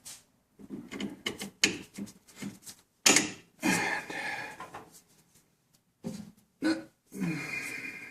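Parts and tools being handled during reassembly around the shifter linkage: a scatter of short clicks and knocks, with two longer noisy stretches about three seconds in and near the end.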